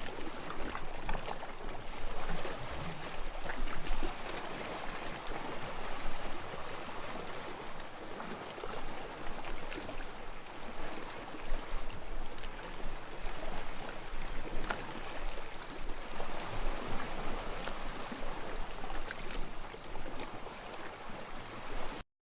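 Sea waves washing ashore: a continuous rush of water that swells and eases in loudness, then cuts off suddenly near the end.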